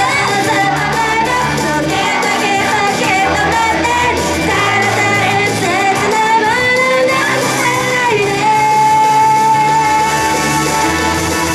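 An idol group singing a pop song live over the music, with one long held note in the last few seconds.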